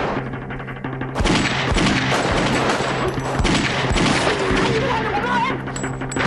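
Gunfire exchange: many gunshots in quick succession, easing off briefly in the first second, then firing again about a second in. Background music with a steady low drone plays underneath.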